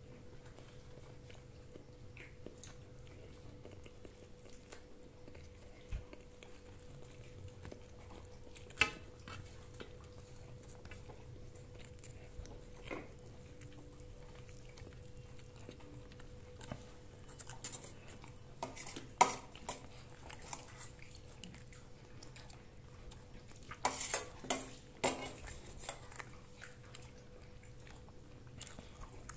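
People eating a meal at a table: quiet chewing, with a sharp click or clatter of plates or cutlery now and then and several in quick succession near the end, over a faint steady hum.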